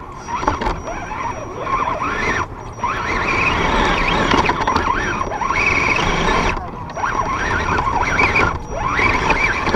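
Axial SCX10 RC crawler's electric motor and geared drivetrain whining, the pitch rising and falling with the throttle and easing off briefly three times.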